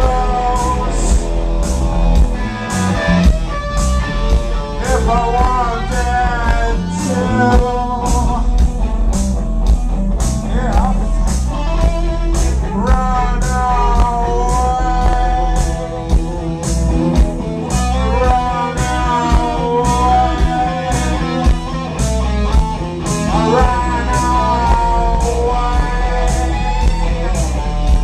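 Live rock band playing loudly: a heavy bass line and a steady drum beat under electric guitar, with a man singing into a microphone.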